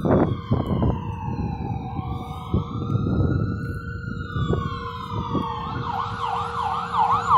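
Dual Whelen electronic sirens on a responding fire-rescue truck, two slow wail tones rising and falling against each other, switching to a fast yelp near the end. A few sharp knocks in the first second.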